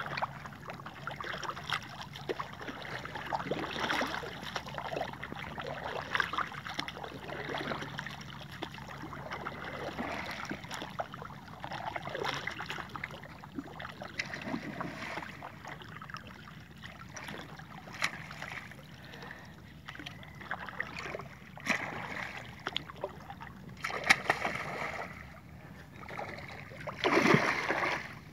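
Wind and water noise around a small boat, then near the end a loud surface splash as a giant snakehead (toman) strikes a walk-the-dog topwater lure.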